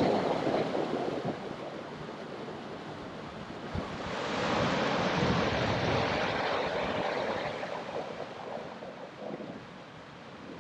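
Wind rushing and buffeting on the microphone of a moving rider, swelling about four seconds in and dying down near the end.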